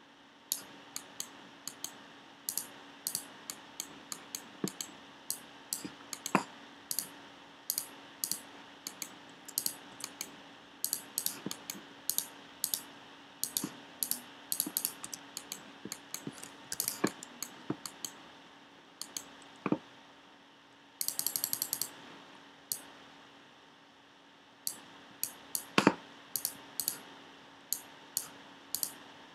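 Computer mouse buttons and keyboard keys clicking at an irregular pace, sometimes in quick pairs. About two-thirds of the way through comes a quick run of a dozen or so ticks from a mouse scroll wheel being turned, and a few seconds before the end one click is louder than the rest. A faint steady hum sits underneath.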